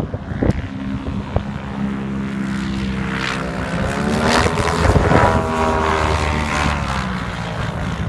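Two-stroke Rotax 582 engine and propeller of a Flyer GT ultralight running, its pitch rising about three seconds in and easing off slightly near the end.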